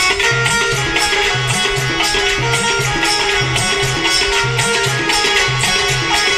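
Instrumental passage of Indian devotional folk music: harmonium playing a melody over a steady dholak beat, with no singing.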